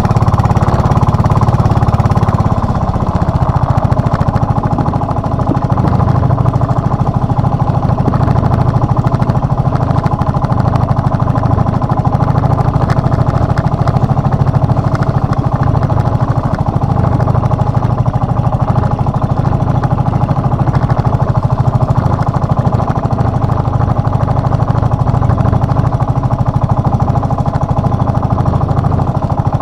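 Small outrigger fishing boat's engine running steadily under way, an even, continuous drone with little change in speed.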